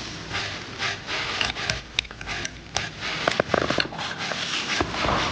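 A person eating noisily, chewing with repeated short wet clicks and sniffing sharply through the nose.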